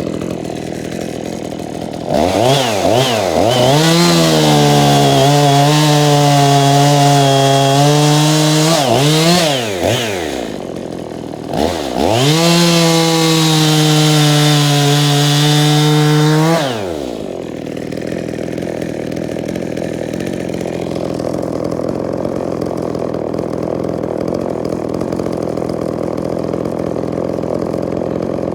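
EFCO two-stroke chainsaw with a 16-inch bar, idling, then run up to full throttle twice in hardwood, about seven seconds and then about four seconds, dropping back to idle in between. It idles steadily through the second half.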